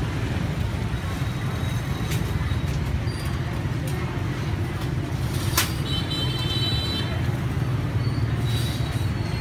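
Steady low rumble of street traffic, with a couple of sharp clicks about two and five and a half seconds in.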